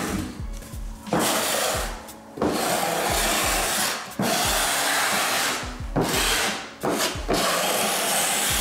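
Notched trowel scraping across a chipboard subfloor as it spreads vinyl-flooring adhesive, in a series of long sweeping strokes of one to two seconds each with short breaks between.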